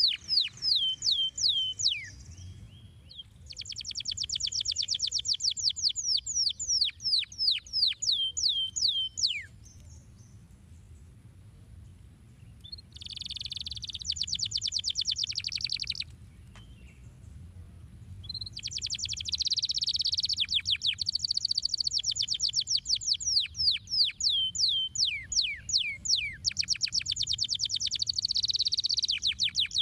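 Domestic canary singing: phrases of rapid, steeply falling high notes and fast trilled rolls, broken by short pauses of a few seconds.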